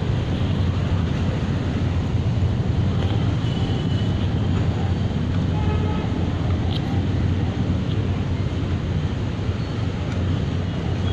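Steady low rumble of city street noise, with a single sharp click about seven seconds in.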